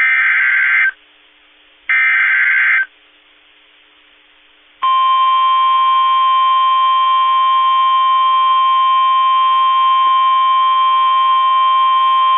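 Start of a NOAA Weather Radio Emergency Alert System broadcast. Two buzzing bursts of SAME digital header data, each about a second long and about a second apart, with faint radio hiss between them. About five seconds in, the steady 1050 Hz warning alarm tone begins and holds; it signals that a warning, here a flash flood warning, is about to be read.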